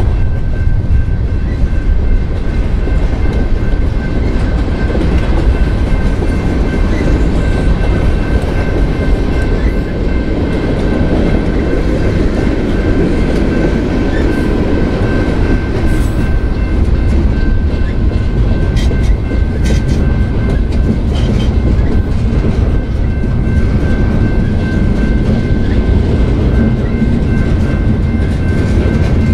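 Freight train rolling past, a steady loud rumble with the clickety-clack of wheels over the rail joints and a thin high ringing tone held over it.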